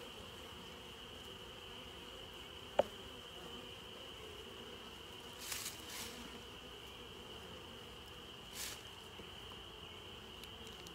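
Honeybees buzzing steadily around an open hive, with a sharp click about three seconds in and two brief scrapes, near the middle and later, as a hive tool pries at the frames.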